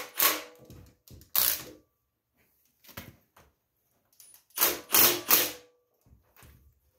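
Cordless impact driver run in short bursts on the tractor's front axle, rattling as it hammers; four bursts, the longest about a second long past the middle.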